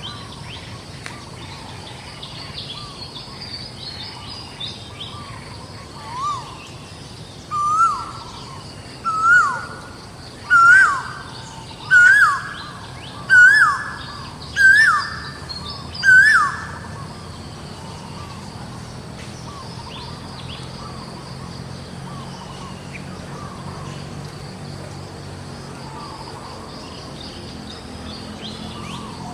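A bird calling a series of about eight loud calls, each one a quick rise and fall in pitch and each a little higher than the last, roughly one every second and a half. Fainter bird chirps and insects keep up in the background throughout.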